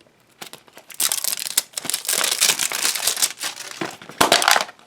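Plastic candy packaging crinkling and crackling as it is handled, a dense run of crackles starting about a second in.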